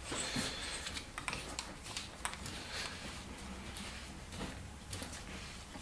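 Faint, scattered clicks and light knocks of the nose sleeve being screwed back onto a POP Avdel ProSet XT3 rivet tool by hand.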